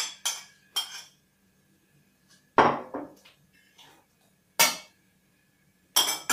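A spoon clinking and knocking against bowls: three quick taps in the first second as grated onion is knocked out of a bowl, then a few separate, louder knocks and clinks about two and a half, four and a half and six seconds in.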